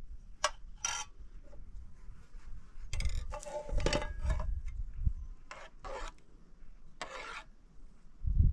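Metal ladle scraping the inside of a cooking pot and clinking on a metal plate while scooping rice milk: a string of short scrapes and clinks. A dull thump near the end.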